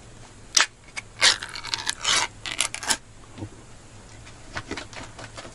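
Ring-pull lid of a tin can being opened by hand. A sharp pop about half a second in as the tab breaks the seal, then a couple of seconds of metal scraping and tearing as the lid is peeled back, then a few faint clicks.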